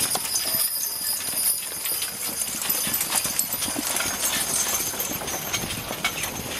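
Hooves of hitched draft horses clip-clopping on the dirt as multi-horse teams pull wagons past at close range, with the knocking and clinking of harness and wagons among the hoofbeats.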